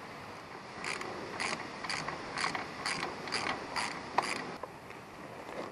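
Socket ratchet clicking on the back-swings as a bolt is worked, a steady run of short clicks about two a second that stops a little past the middle.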